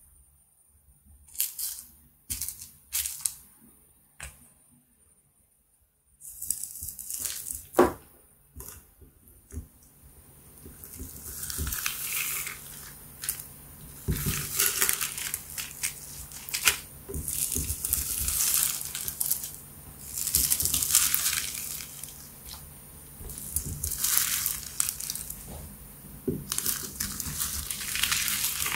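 A few sharp clicks in the first seconds. Then, from about six seconds in, hands press and mix clear slime loaded with beads and sprinkles, with wet paper money worked into it, making a dense crackling and crinkling full of small snaps.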